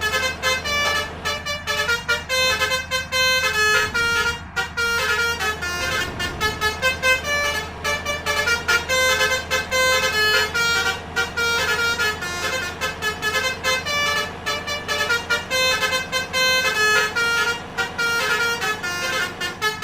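Basuri musical air horn (an 'om telolet' horn) playing a fast melody of short, stepped notes, with a steady low hum underneath.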